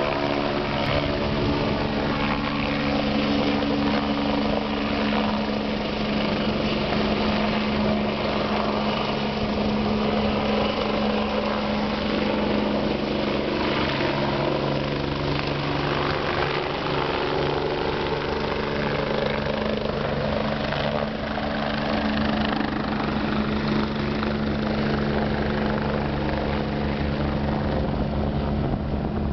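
BK 117 twin-turbine air-ambulance helicopter hovering and air-taxiing low, its engines and rotor running with a steady tone.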